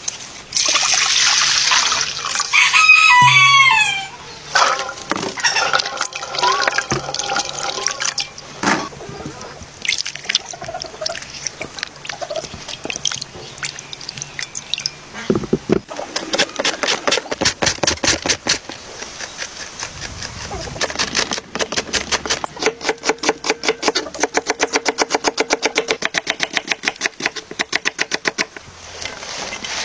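A rooster crows a few seconds in. Later, a kitchen knife slices an onion against a wooden cutting board in quick, even strokes.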